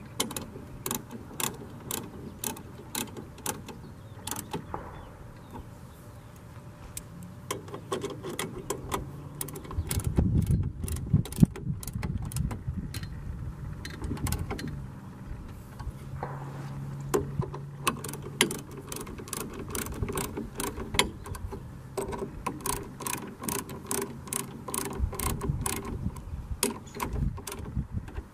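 Sharp metallic clicks and scrapes, a few a second, from hand-sharpening a chainsaw rip chain on its bar, with a short lull about six seconds in.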